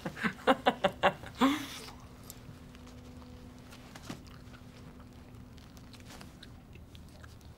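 Crusty baguette sandwich bitten into and chewed: a quick run of crackling crunches of the crust in the first two seconds, then only faint room tone with a low steady hum.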